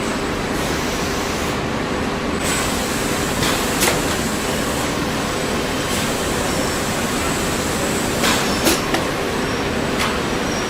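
Steady machinery noise on a car battery production line, with a faint high whine and a few short clicks and knocks scattered through.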